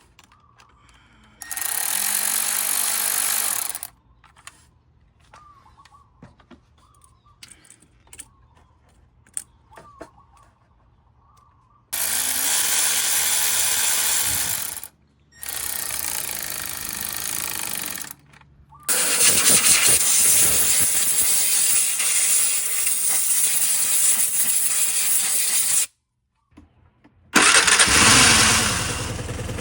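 Vespa GT200 scooter engine being cranked on its electric starter in several separate attempts of a few seconds each, then catching about 28 seconds in and settling into a steady idle.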